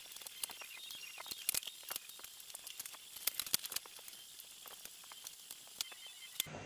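Faint steady hiss with many quick, irregular small clicks and ticks: tools and parts being handled during work on the ATV. It cuts off sharply near the end.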